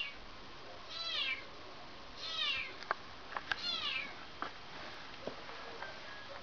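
Three short animal calls, each sliding down in pitch, with a few sharp clicks between them over a steady hiss.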